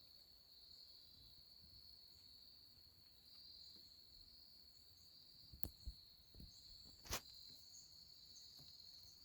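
Near silence with a steady, high chirring of crickets, and a couple of faint clicks past the middle.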